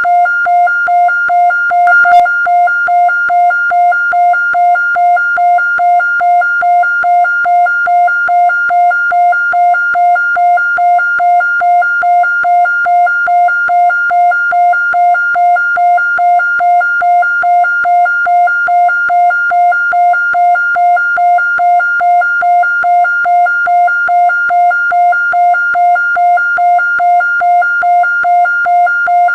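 Restored recording of a 1970s Japanese police siren: one steady-pitched electronic tone pulsing evenly about twice a second, with no rise or fall in pitch. A single sharp click sounds about two seconds in.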